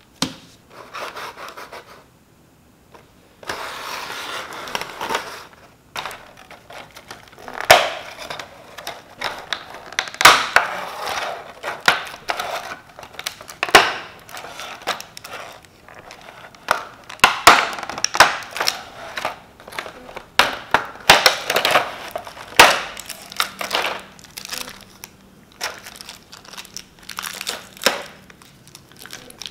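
Clear plastic blister tray and small plastic bags being handled. Irregular crinkling and crackling comes with many sharp clicks and snaps as figure parts are worked out of the tray.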